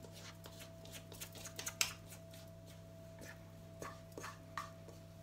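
Sticky brioche dough being worked out of a metal mixing bowl by hand: scattered light clicks and knocks of fingers and bowl rim against the metal, in two clusters, the sharpest click about two seconds in. A steady low hum runs beneath.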